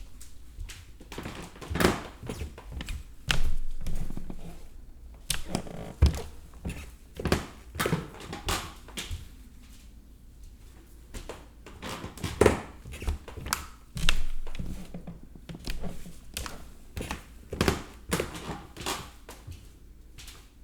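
Wooden stairs creaking and thudding under footsteps, an uneven run of knocks and short creaks.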